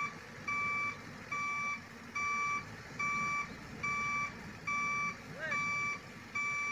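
Vehicle back-up alarm beeping steadily, a little more than one beep a second, each beep under half a second long, over the low rumble of a running engine.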